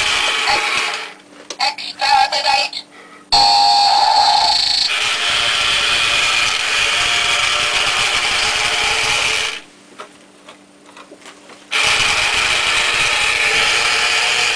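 Remote-control Dalek toy's small drive motor whirring as it rolls across a tiled floor, running in stretches that stop and start: about a second at first, then for about six seconds, then again from about twelve seconds in. In the first pause the toy gives brief electronic tones.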